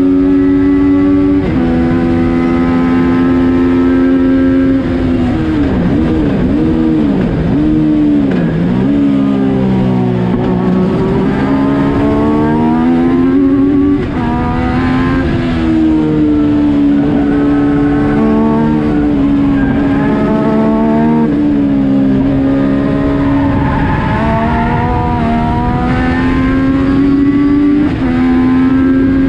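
Yamaha FZ-09 three-cylinder motorcycle engine in a race car, heard from the cockpit under hard driving. The pitch climbs through the gears and drops sharply at each upshift. About a third of the way in the revs swoop up and down through braking and downshifts into a corner, then climb again as it accelerates out.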